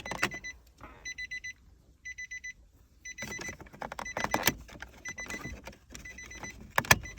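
Rapid electronic beeping at one steady high pitch, in short runs of a few beeps with gaps between, typical of a car's warning chime. Sharp plastic clicks and knocks from the shifter console trim being worked loose come in between, the loudest near the end.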